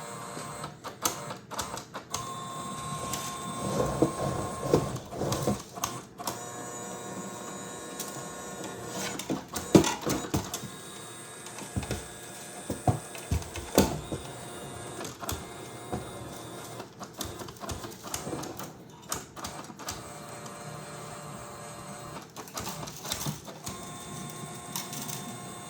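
Creality CFS filament system's feed mechanism whirring and clicking as it drives forward and then reverses, over and over without stopping. It is stuck in an endless feed-and-retract loop, a malfunction of the unit. A steady motor whine comes and goes under frequent small clicks and knocks.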